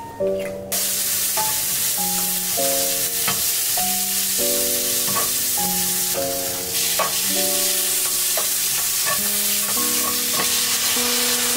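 Sliced red onion, then chicken, frying in hot oil in a wok and stirred with a spatula: a steady sizzle that starts sharply about a second in, with light scraping clicks. Soft piano-like background music plays throughout.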